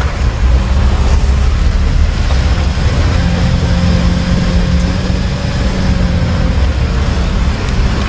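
Motor vehicle driving on an unpaved forest road: a loud, steady engine drone with rumbling road noise, the engine note holding steady for a few seconds in the middle.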